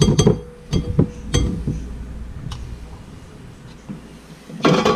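A utensil clinking against a glass mixing bowl several times in the first second and a half, the glass ringing briefly after the first strikes, then a short clatter near the end.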